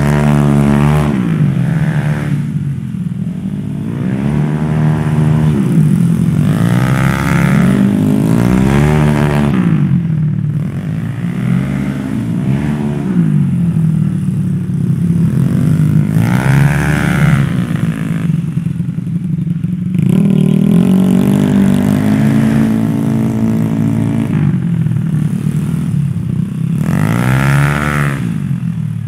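Race-tuned Yamaha Mio scooter bored up to 150cc, its single-cylinder engine revving up hard and dropping back about eight times, accelerating out of each tight turn and easing off into the next.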